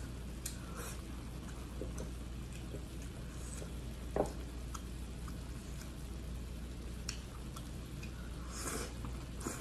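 Close-up eating sounds: chopsticks clicking lightly on a plate, wet chewing, a single knock a little past four seconds in, and a slurp of glass noodles near the end, over a steady low hum.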